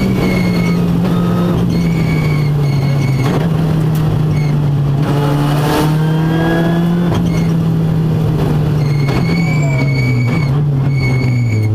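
Ford Fiesta R5 rally car's turbocharged four-cylinder engine heard from inside the cabin, driving hard at speed, its pitch sliding and stepping with the gear changes. Short high beeps repeat over the engine.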